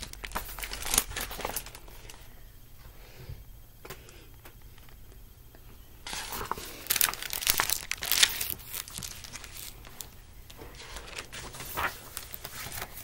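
Paper pages and cover of a picture book rustling and scraping as the book is handled close to the microphone. The rustling eases off about two seconds in and picks up again, busier, from about six seconds.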